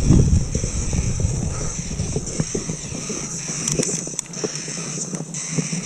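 Mountain bike descending a wet trail: tyres on dirt, with many sharp knocks and rattles from the bike over roots and rocks. Wind rumble on the microphone dies down about halfway.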